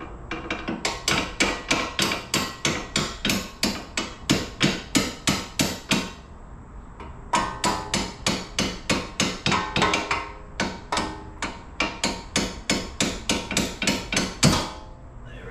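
Rapid hammer blows on a Dodge Dart's front suspension, about four a second with a ringing metal note, driving the lower ball joint stud into the steering knuckle. One pause about six seconds in, then a second run ending in a single harder blow near the end.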